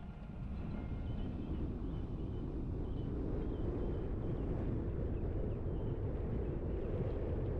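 Car driving along a road: steady low rumble of road and wind noise, growing louder over the first second and then holding even.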